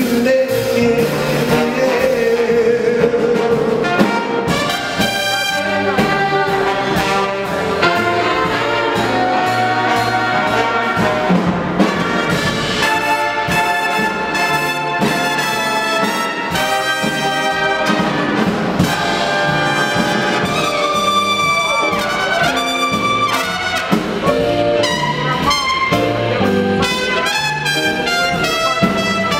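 Live jazz big band playing, its trumpets, trombones and saxophones together in a brass-led ensemble passage.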